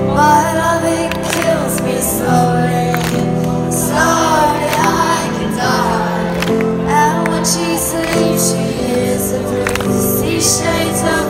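Live band playing through a festival PA, heard from the crowd, with a female voice singing over held chords and a regular drum beat.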